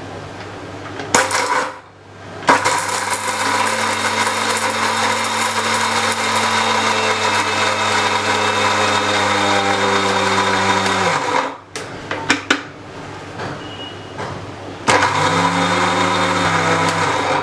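Electric mixer grinder (mixie) dry-grinding almonds, black pepper and boora sugar into powder. The motor spins up and runs steadily for about nine seconds, stops, and after a few clicks runs again briefly near the end.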